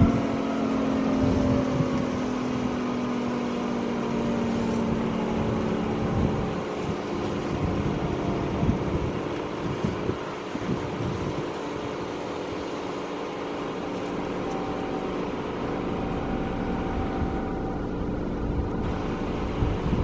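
Federal Signal Thunderbolt B-series siren winding down after a full-alert test: its chord falls in pitch and fades over the first six seconds or so as the blower and chopper coast down. A low rumble stays on after that.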